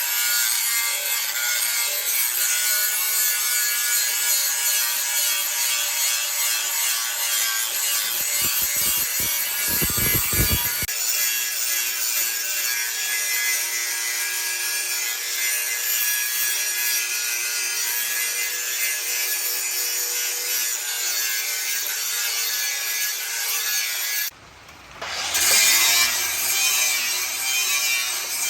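Steady abrasive rubbing on the metal of an old sickle as it is cleaned and worked. It breaks off briefly near the end, then starts again.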